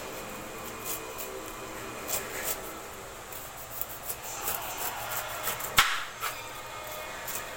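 Knife slicing down through the tough rind of a ripe pineapple and scraping against the fruit and cutting board: irregular short crunching cuts, with one sharper click about three-quarters of the way through.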